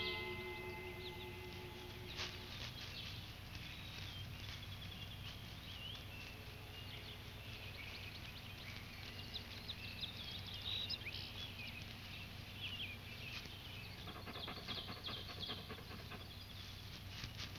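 Quiet woodland ambience: small birds chirping and twittering, with scattered light rustles and clicks and a busier burst of chirping and rustling about fourteen seconds in, over a low steady hum.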